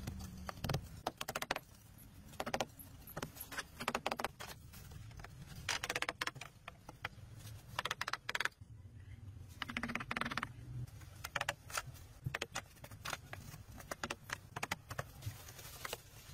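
Pieces of cut green bamboo clacking and rattling against each other as they are handled and laid onto a mud bed frame, in irregular light knocks with some scraping and rustling.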